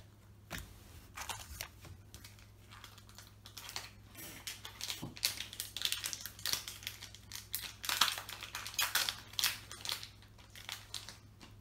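Foil booster pack of Naruto trading cards being torn open and its wrapper crinkled, in irregular crackles and rustles that are thickest about halfway through and again around eight or nine seconds in.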